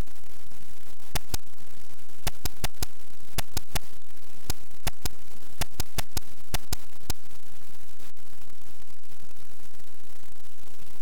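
Steady, loud static hiss like white noise. A run of about twenty sharp clicks in irregular clusters cuts through it between about one and seven seconds in.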